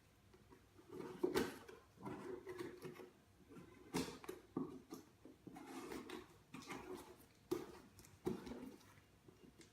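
A cardboard box and its packaging being torn open by hand: irregular bursts of rustling and crinkling, with a few sharper rips.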